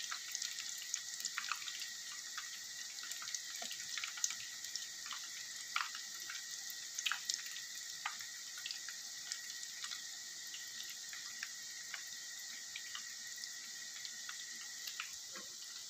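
Samosas deep-frying in hot oil in a pan: a steady sizzle with many small crackles and pops scattered through it.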